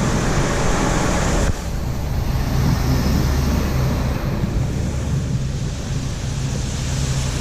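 Tractor engine running steadily with a low hum, heard from inside the cab. A layer of rushing noise above it drops away about a second and a half in.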